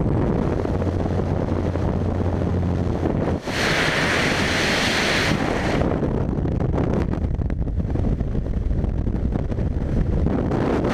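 Jump plane's engine and propwash at the open door, a steady low hum under the wind. About three and a half seconds in, a brief dip as the jumper exits, then a loud hiss for about two seconds. After that, the freefall airflow buffets the helmet camera's microphone in a dense, steady rush.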